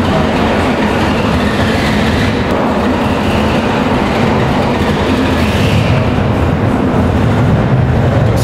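Steady rumble of a car driving: engine and road noise, with no marked changes in pace.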